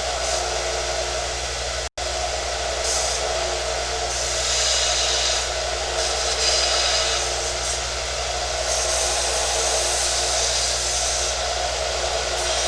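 Small metal-working belt sander running steadily while a piece of aluminum is sanded freehand on the belt. The hiss of the metal on the abrasive comes in several stretches, the longest a few seconds in the middle. The sound cuts out for an instant about two seconds in.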